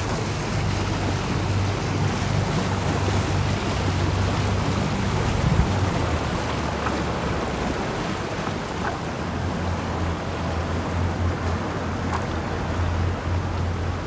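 Twin outboard motors running at low speed, a steady low hum over a constant hiss of wind and water. The hum grows stronger about two-thirds of the way in.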